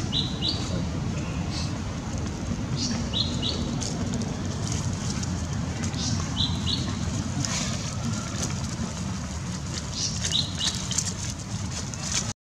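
Outdoor ambience: a steady low rumble with scattered brief rustles and clicks, and a bird's short two-note chirp repeating about every three seconds.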